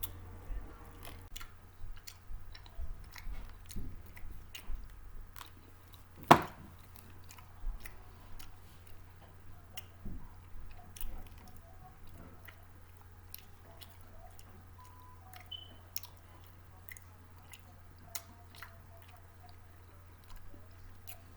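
A person chewing and crunching junk-food snacks close to the microphone, with many small mouth clicks. One sharp snap about six seconds in is much louder than the rest. The chewing is busy in the first half and thins out toward the end.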